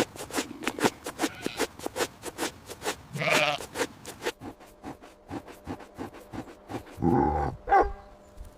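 Bleating livestock: a wavering call about three seconds in and two more near the end, the last sliding down in pitch, over a fast run of sharp clicks, about five a second, in the first half.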